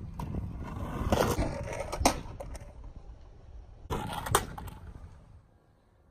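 Plastic toy cars being handled and rolled on a surface: a low rolling rumble with scrapes and sharp clicks about a second in, again around two seconds, and around four seconds, then fading out near the end.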